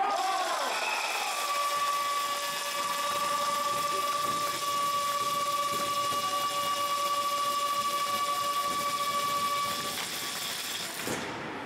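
A small motor's steady whine with several held tones, the tones stopping about ten seconds in and a fainter hiss fading out about a second later.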